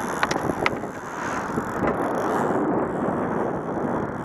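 Wind buffeting the microphone, a steady rushing noise, with a few sharp clicks in the first second.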